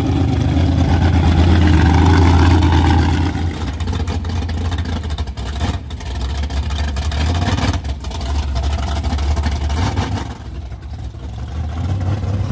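Engine of a mud-racing vehicle running hard, loudest over the first three seconds, then easing back and dipping a few times before picking up again.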